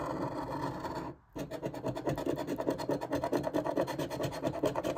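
A metal coin scratching the coating off a paper scratch-off lottery ticket in rapid back-and-forth strokes. It stops briefly a little after a second in, then carries on.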